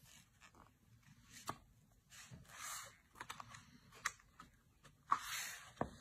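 Hands handling a paper user manual and mop pads: two short rustles of paper and packaging, with a few light taps and clicks in between.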